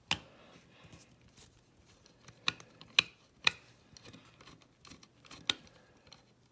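Sharp metallic clicks and taps from a Chubb 5-lever mortice lock as its case is handled and opened, three louder ones about half a second apart near the middle and another a couple of seconds later.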